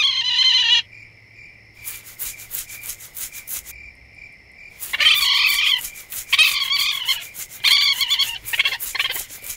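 Cartoon sound effects: animal squeals over a steady cricket-like chirp. One short squeal comes at the start and several more from about halfway, over fast rustling, scratching ticks as the animal scrambles through the leaves.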